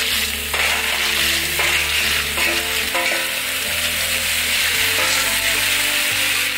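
River snails in their shells frying in hot oil in a metal wok and being stirred with a metal spoon: a steady, loud sizzle, with a few sharp clicks of shells and spoon against the pan in the first few seconds.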